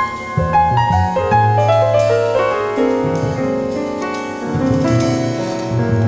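Jazz piano playing a melodic passage on a grand piano, with a double bass walking underneath in a live quartet.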